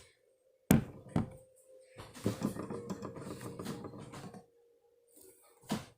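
Slime being poked and squished by hand: a couple of sharp pops, then about two seconds of continuous crackly squishing, and one more pop near the end.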